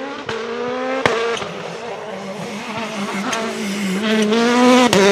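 Hyundai i20 rally car's engine running hard, its note slowly climbing and growing louder toward the end, with a sharp crack about a second in and another near the end.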